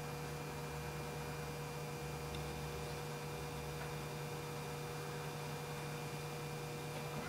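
Steady electrical mains hum over faint room hiss, with no speech.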